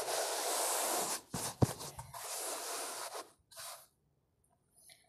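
Sand-cement crumbled by hand and falling into a bucket of the same gritty mix: a long gritty hiss, a sharp click about a second and a half in, then a second long hiss and a short final one before it stops.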